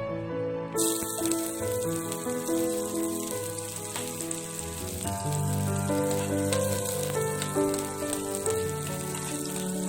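Food sizzling as it fries in a hot pan, starting suddenly about a second in and going on steadily, over soft background music.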